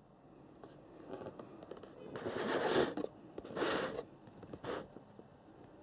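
A cardboard box being handled and turned over in the hands: three scraping rustles, the first and longest about two seconds in.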